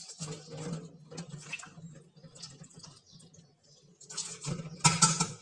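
Boiled spinach being handled in a glass bowl of water in a steel sink: irregular wet rustling, small taps and patter, with a louder splashing burst near the end. A steady low hum runs underneath.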